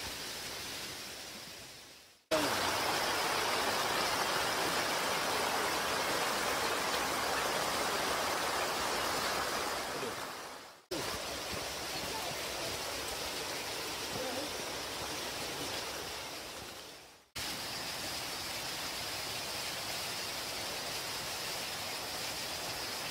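Tropical rainforest ambience: a steady rushing noise with an even, higher hiss on top, dipping out twice as the clips fade.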